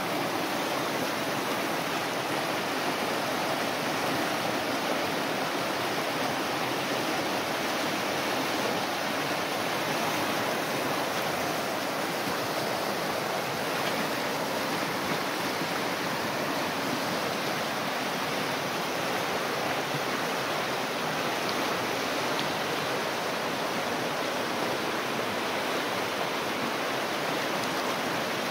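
River water pouring over the edge of a low concrete sill and churning as white water between logs: a steady rushing.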